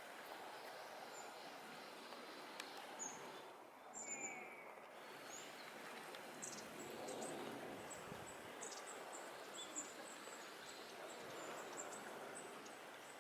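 Quiet outdoor background noise with faint, high bird chirps scattered through it.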